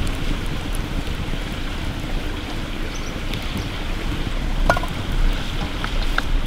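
Wood campfire burning under a pan: a steady low rushing of flames, with sharp crackles and pops from the burning wood now and then, several of them close together in the second half.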